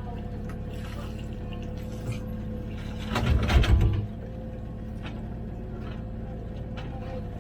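Komatsu PC16 mini excavator's diesel engine running steadily, with a louder burst of knocking and clatter lasting about a second about three seconds in.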